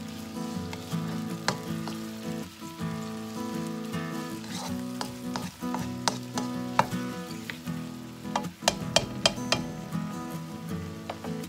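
Chopped onion and tomato sizzling in a hot nonstick wok while a plastic spatula stirs them. A run of sharp clicks from the spatula knocking on the pan comes about three-quarters of the way through.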